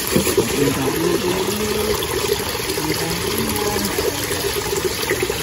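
Running water splashing steadily, with faint voices in the background.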